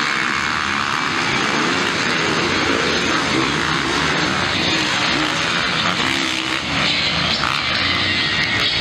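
A pack of motocross bikes racing, many dirt bike engines revving up and down over one another as they accelerate through the turns.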